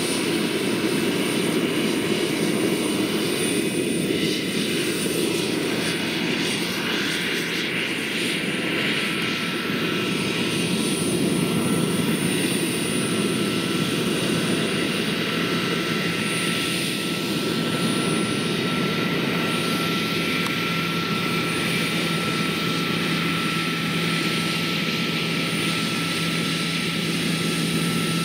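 Large-scale RC Aérospatiale Gazelle helicopter with a Jakadofsky Pro 6000 model turbine, flying with its turbine and rotors running steadily. A steady high whine sits over a continuous broad rush and grows clearer partway through.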